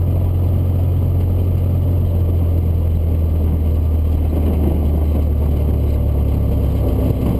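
Single-engine Cessna's piston engine and propeller running steadily in flight, heard inside the cockpit as a loud, even low drone with a rushing noise over it.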